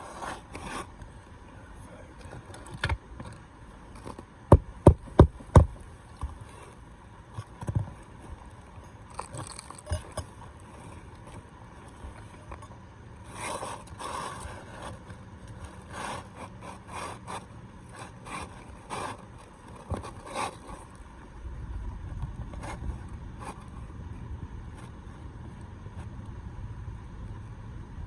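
Four sharp hammer blows in quick succession about five seconds in, driving a roofing nail through asphalt shingles, among scattered scraping and rustling of shingles being worked. A low rumble sets in about three-quarters of the way through.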